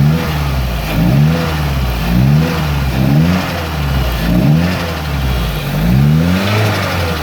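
Nissan CA18DET turbocharged four-cylinder engine revved in short throttle blips about once a second, with the engine settling back between blips. The owner suspects a spun bearing, a rod knock.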